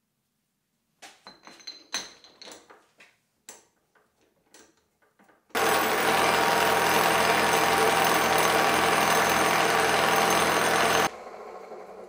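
Metal clicks and clinks, a couple of them ringing briefly, as an end mill is handled in its collet chuck. Then a milling machine starts suddenly and runs loudly and steadily for about five and a half seconds, with several steady tones in its sound. It is switched off, drops abruptly and fades as the spindle runs down.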